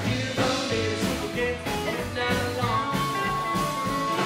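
Rockabilly band playing live: a singer over electric and acoustic guitars, upright double bass and drum kit, with a long held note in the second half.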